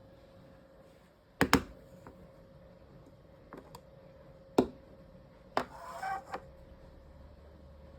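A few sharp knocks and clicks, such as plastic toy pieces tapped and set down, the loudest a double knock about a second and a half in. A short rustle follows near the end, over a faint steady hum.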